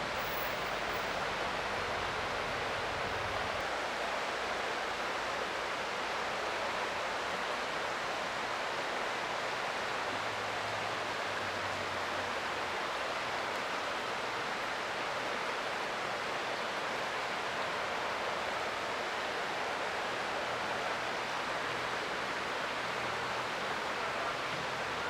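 Creek water flowing: a steady, even rushing.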